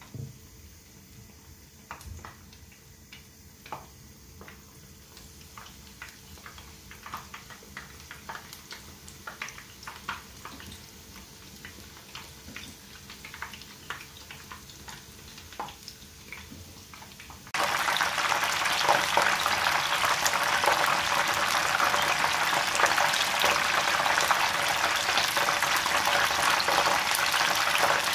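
Battered fish frying in hot oil in a saucepan. For most of the first two-thirds there are only scattered crackles and pops. Then it switches suddenly to loud, dense sizzling that keeps on.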